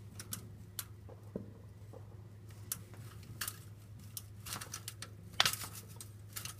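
Scattered, irregular pops and crackles of distant consumer fireworks, over a steady low hum. The sharpest crack comes about five seconds in.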